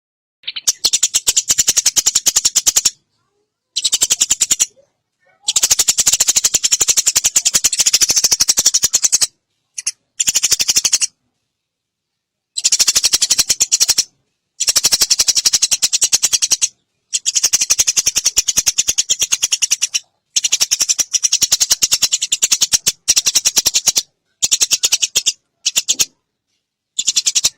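Eurasian tree sparrow giving long, rapid chattering calls, a fast high rattle of notes in bouts of about one to four seconds with short silent breaks between them.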